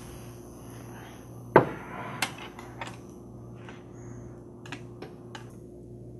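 Kitchen utensils knocking: one loud knock about a second and a half in, then a handful of lighter clicks and taps, over a steady low hum.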